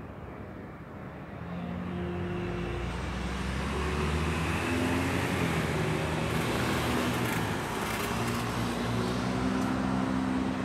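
Road traffic: a motor vehicle's engine swells in about a second and a half in and stays loud, its hum stepping up and down in pitch, with a hiss of tyre noise strongest through the middle.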